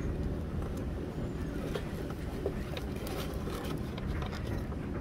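Small plastic wiring connectors and wires clicking and rattling lightly as they are handled, a few faint ticks from about a second and a half in, over a steady low rumble.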